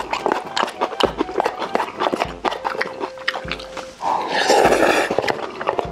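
Close-miked eating sounds: wet chewing and mouth clicks throughout, with one loud slurp about four seconds in as food is sucked from a plastic cup held to the mouth.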